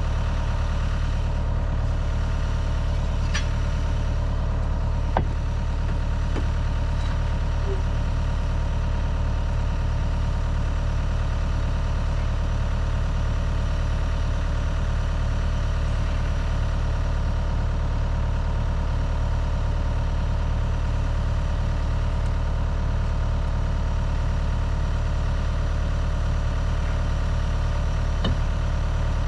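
Heavy-equipment diesel engine idling steadily, with a few faint metallic clicks.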